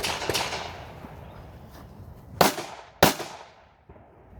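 Glock 22 Gen 5 .40 S&W pistol being fired: a couple of quick shots at the start, then after a pause two more loud shots about half a second apart, each trailing off in an echo.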